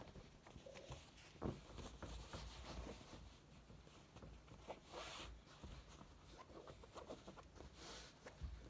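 Hands flipping over and smoothing a cotton canvas tote bag: faint fabric rustling and brushing, with a soft thump about one and a half seconds in.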